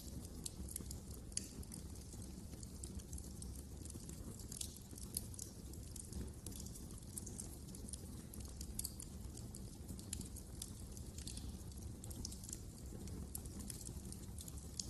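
Wood fire in a fireplace crackling, with many irregular small pops and snaps over a low, steady rumble of the flames.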